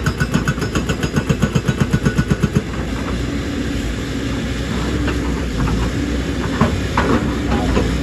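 JCB excavator's hydraulic rock breaker hammering rock in a fast, even rhythm of about seven blows a second, stopping about two and a half seconds in. After that the excavator's diesel engine runs steadily, with a few separate knocks near the end.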